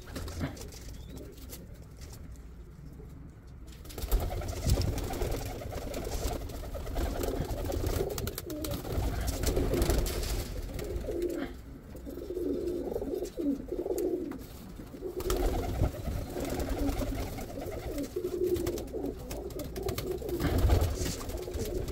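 Pigeons cooing, a wavering low murmur that grows louder about four seconds in, with rustling and bumping from handling close by.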